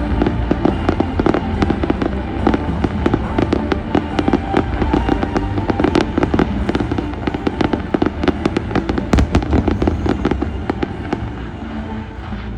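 Fireworks display in a dense barrage of rapid bangs and crackles, with music playing underneath; the barrage eases off slightly near the end.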